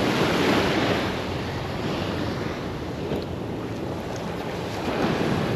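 Surf washing in steadily below a rocky shore, with some wind on the microphone.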